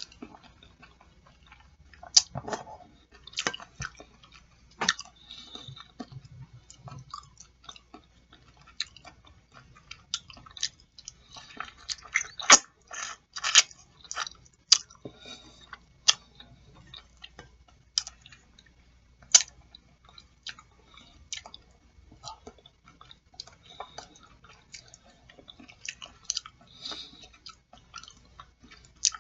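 Close-miked chewing of tender boiled chicken feet: irregular wet mouth clicks and lip smacks, busiest about halfway through.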